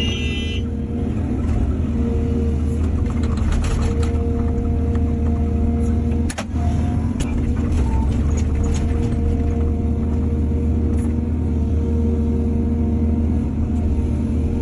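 Excavator's diesel engine running steadily, with a steady whine over its drone and scattered knocks and clanks, one sharp knock about six seconds in.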